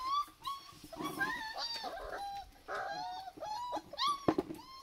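Puppies whimpering and whining in a string of short, high whines, one after another. A sharp knock about four seconds in.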